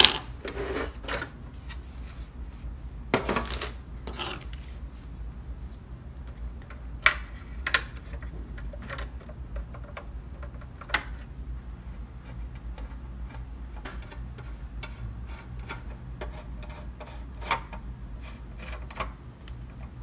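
Scattered small clicks, taps and rubbing as the oscilloscope's keypad circuit board and plastic front-panel parts are handled and fitted into the chassis, over a steady low hum.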